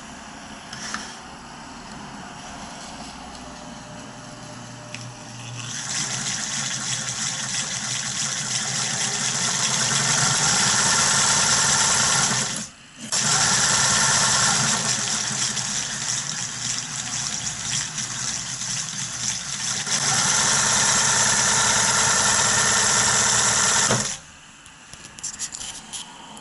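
Baby Lock serger (overlock sewing machine) running. It is quieter for the first few seconds and much louder from about six seconds in, stops for a moment about halfway, starts again, and stops abruptly near the end.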